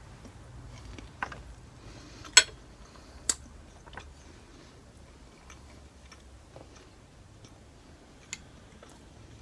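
Eating at close range: soft chewing with a few sharp clicks and taps, the loudest about two and a half seconds in and another near the end.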